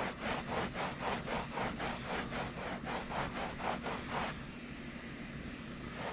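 A folded cloth rubbed quickly back and forth over a carpet's pile by hand, about three rasping strokes a second, to work out a freshly steamed stain; the rubbing stops about four seconds in. A steady low hum runs underneath.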